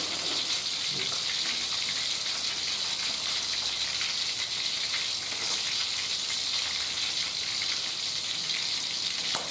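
Chicken frying in oil in an aluminium wok: a steady sizzle with small crackles and spits.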